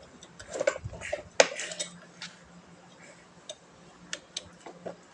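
Light metallic clicks and clinks from bike parts being handled and fitted together during assembly. A louder knock comes about one and a half seconds in, and the clicks grow sparser after about two seconds.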